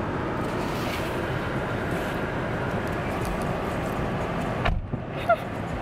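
Steady running noise of a parked car, heard from inside the cabin, with one short sharp click near the end.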